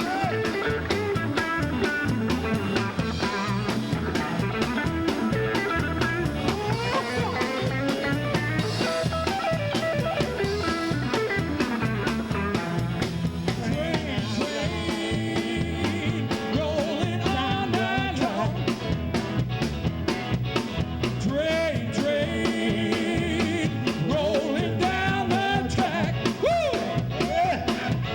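A live band playing an up-tempo blues-rock number: electric guitar, drum kit and singing.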